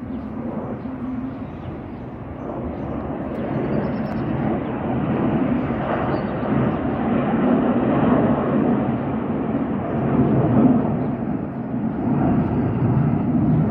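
Distant jet noise from the Turkish Stars' formation of NF-5 jets flying over the sea, a steady rushing sound that swells gradually louder and dips briefly near the end.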